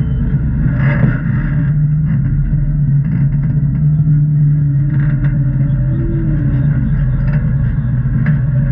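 Jeep engine running steadily at low speed, with a few short knocks or clicks along the way.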